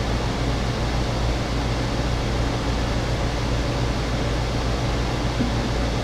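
Steady low hum with an even hiss over it, constant room background noise of the kind a running air conditioner or fan makes.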